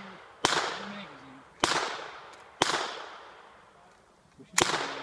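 Gunshots, four sharp cracks about a second apart, each followed by a long echoing decay.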